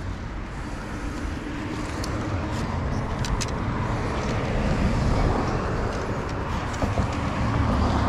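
Road traffic on a highway: cars going by with a swelling and fading rush of tyre and engine noise, plus a few light clicks and rattles close by.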